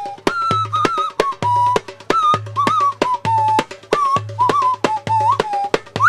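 Darbuka played in a brisk rhythm: deep bass strokes about twice a second with sharp slaps in between. A wooden nose whistle plays a clear, wavering melody over the drumming.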